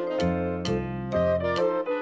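Background music: an instrumental tune with held notes over a changing bass line and a steady beat.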